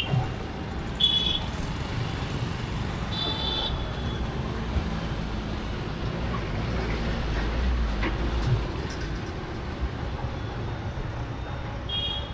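Busy city road traffic at a junction: a steady rumble of passing motorbike, scooter and car engines and tyres. Short horn honks sound about a second in, around three seconds in and near the end.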